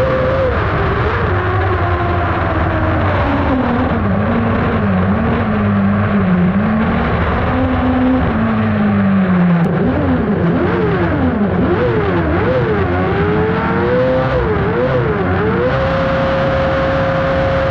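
Kart cross's motorcycle-derived engine racing, heard onboard, its revs rising and falling through the corners. They swing up and down quickly several times past the middle, then hold steady at high revs near the end.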